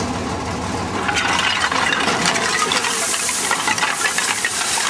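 A load of soil and broken stone sliding off a raised dump-truck bed: a rush of earth with many stones clattering and knocking. It builds from about a second in and is heaviest near the end.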